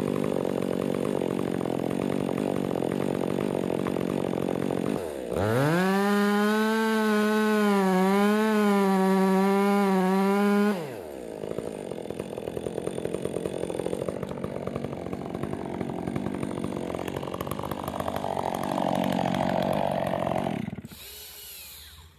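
Two-stroke chainsaw running. About five seconds in it is revved to full throttle and held there for about five seconds with a slight waver. It then drops back to a rougher, lower running and shuts off near the end.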